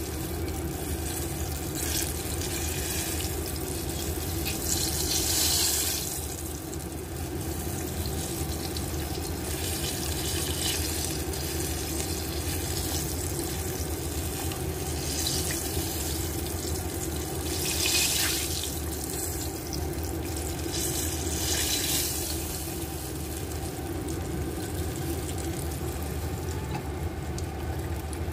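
Flour-coated chicken wings deep-frying in a pot of oil: a steady sizzling hiss that swells several times.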